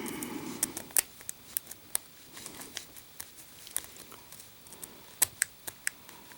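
Lock pick and tension wrench working the pins of a Master Lock No. 1 pin-tumbler padlock: a dozen or so small, sharp metal clicks at irregular intervals.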